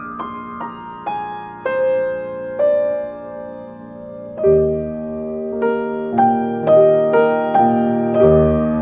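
Piano music: a slow descending run of single notes, then, about halfway through, a fuller passage with bass notes and evenly spaced chords.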